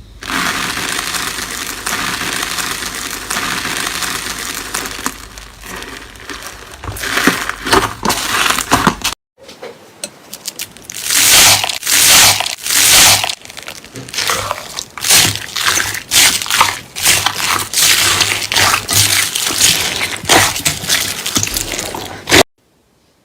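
Foam-ball slime (floam) being squeezed and pressed by hand, crackling and crunching as the beads pop. A dense, continuous crackle for about the first nine seconds, then after a short break a run of separate crunchy squeezes, several a second.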